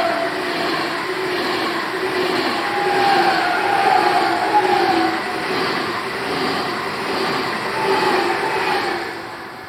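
A train passing close by, its wheels squealing in drawn-out, wavering tones over a regular clatter of wheels on the rail joints, about twice a second. It fades away near the end.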